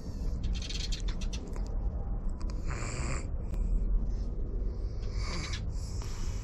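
Cat crying out several times in short calls of about half a second each, over a steady low rumble.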